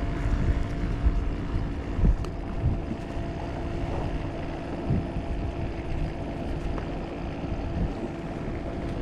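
Steady drone of a boat engine, with wind buffeting the microphone.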